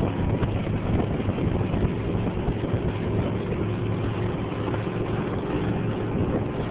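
Motorboat engine running steadily at towing speed, with a constant rush of wind and wake water, heard from aboard the boat.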